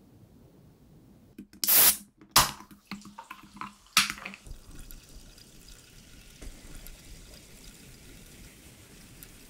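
A soda can is cracked open with a short, sharp hiss, followed by a few clicks. About four seconds in, cola is poured from the can over ice in a glass, and the rest is a steady fizzing crackle of carbonation and foam.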